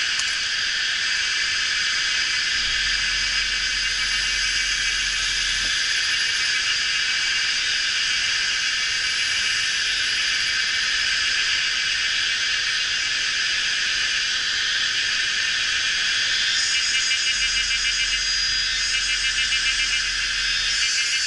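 Dense chorus of calling insects: a steady high-pitched buzzing, with a fast pulsing trill standing out from about three-quarters of the way in.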